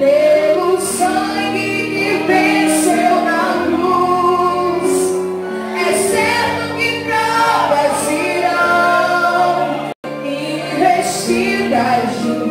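Amplified worship singing: female and male voices sing a hymn into microphones over sustained musical accompaniment, with a brief dropout in the sound about ten seconds in.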